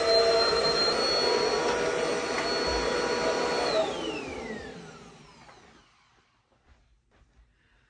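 Upright vacuum cleaner running over carpet covered in yarn clippings, its motor whining steadily. About four seconds in it is switched off and the motor winds down with a falling whine to quiet, leaving a few faint clicks.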